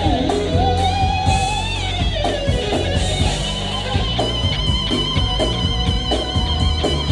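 Live band music led by an electric guitar playing bent and sliding notes with vibrato over a steady bass.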